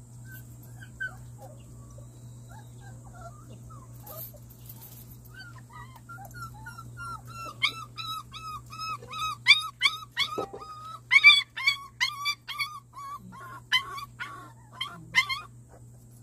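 One-month-old Jindo-cross puppy whimpering and yelping after a combination-vaccine injection: a fast string of short, high cries that start faintly and grow louder from about halfway, loudest around eleven seconds in. It is a puppy's fuss over the shot rather than a sign of lasting pain.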